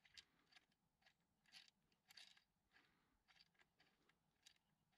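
Faint, scattered clicks and small scrapes of fingers handling and fitting the throttle linkage parts of a Parsun 15 hp four-stroke outboard.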